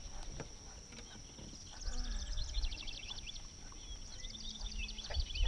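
Outdoor ambience of small birds chirping in quick series over a steady high-pitched insect buzz, with low rumbles of wind or handling on the microphone.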